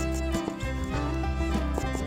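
Instrumental background music with held notes over a steady, clip-clop-like percussive beat.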